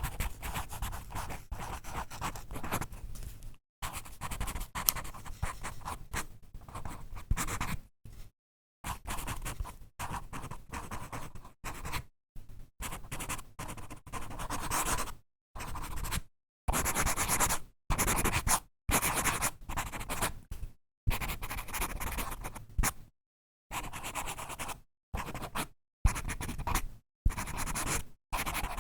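Pen writing on paper: bursts of quick scratching strokes broken by short pauses as the pen lifts.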